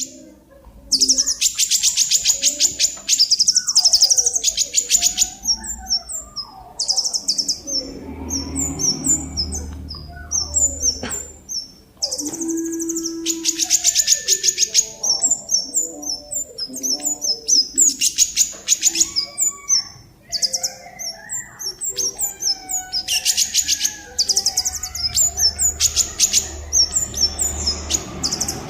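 A songbird singing: bursts of very rapid, high trills every couple of seconds, alternating with runs of short, quickly repeated notes.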